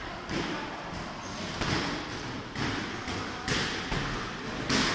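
Kickboxing gloves striking during sparring: a few sharp thuds at irregular intervals, about one a second, over shuffling feet.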